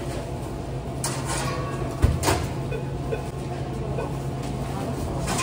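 Sandwich-counter work at a Subway shop: a few light clicks and one sharp knock about two seconds in, like a lid or door being shut, over a steady low machine hum.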